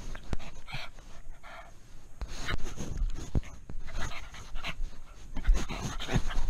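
A pug panting close up against the microphone, its face pressed to the phone, with a few knocks as it bumps the camera.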